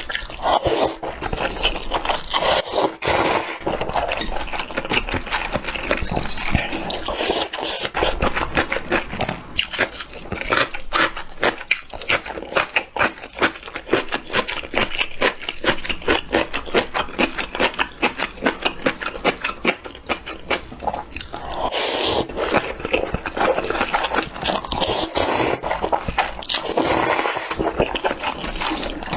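Close-miked eating sounds: noodles in clear broth being slurped and chewed, with many quick wet mouth smacks.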